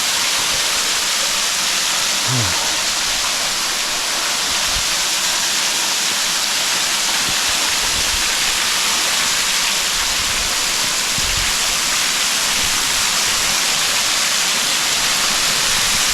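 Cornelius Falls, a waterfall, rushing with a steady, even roar of falling water.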